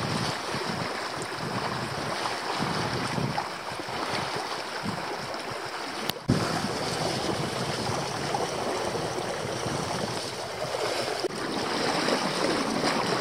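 Water washing along the hull of a small sailboat moving under sail in a light breeze, mixed with wind on the microphone. The sound drops out briefly about six seconds in and comes back with a click.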